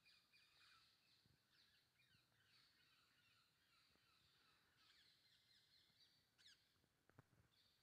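Faint chorus of forest birds: many short chirps and quick whistles overlapping, with a few soft low thuds.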